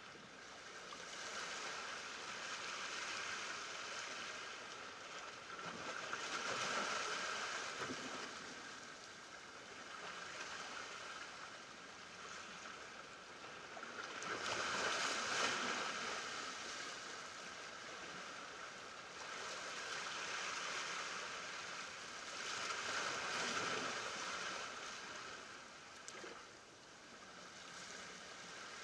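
Small ocean waves washing against shoreline rocks, the wash swelling and fading every few seconds.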